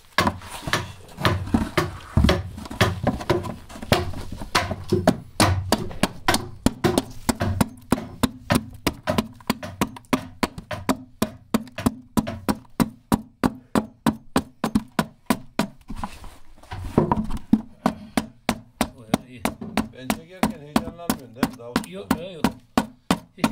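Hand adze chopping into a mulberry-wood bağlama body as it is hollowed out: a steady run of sharp wooden blows, about three a second.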